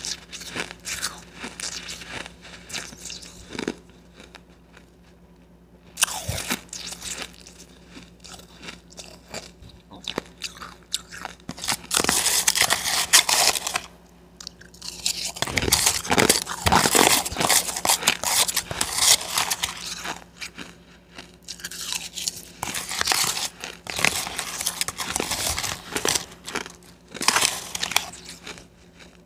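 Close-miked crunching and chewing of a mouthful of blended ice, in bouts of several seconds, with a quieter stretch about four seconds in.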